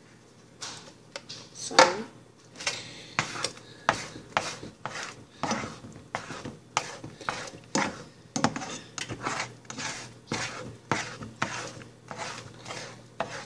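A utensil stirring runny scrambled eggs in a frying pan, knocking and scraping against the pan about twice a second.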